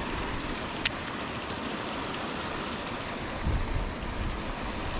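Steady rushing, splashing water from a pond's paddlewheel aerator churning the surface, with one sharp click about a second in and a low rumble near the end.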